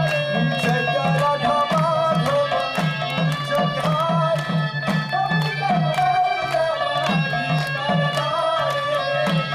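Kirtan music: a two-headed mridanga drum played in a quick, steady rhythm, its deep bass strokes bending in pitch, under a wavering melody.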